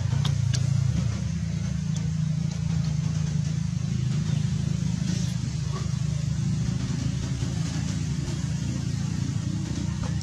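A steady low rumble, with a few faint clicks.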